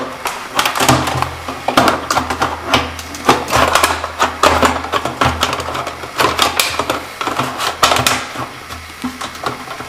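Hard plastic aquarium filter parts being handled and fitted into place: a run of irregular clicks, taps and knocks, over a low hum that sets in about a second in.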